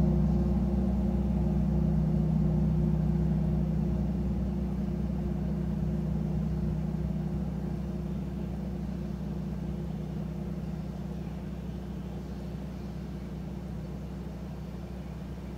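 Large gong ringing out after being played, a deep steady hum with a few higher tones that slowly fades, with no new strikes.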